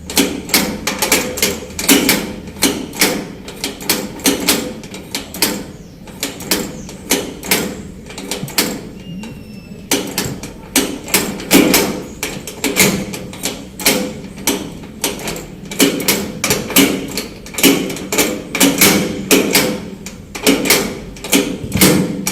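Door lock being worked over and over: a rapid string of sharp metallic clicks and clacks from the latch and lock mechanism, several a second in uneven clusters with brief pauses between them.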